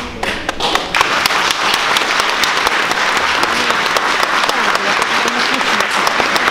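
Audience applauding: many hands clapping together, building within the first second and then holding steady.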